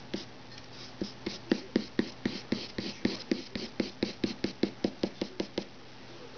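Drawing pencil hatching on paper pinned to a board, a quick even run of short tapping strokes about four a second that stops near the end, over a faint steady hum.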